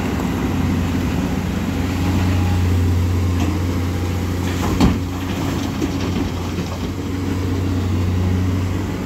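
JCB 305 LC tracked excavator's diesel engine running steadily with a low hum as it works. About halfway through there is a sharp bang, with a few smaller knocks after it, as a bucketful of wet rocks is dropped into a steel dump-truck body.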